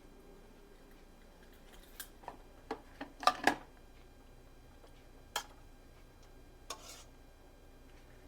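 Dishes and cutlery being handled: a cluster of light clinks and knocks from about two seconds in, the loudest pair about three and a half seconds in, then two more single clinks a couple of seconds apart.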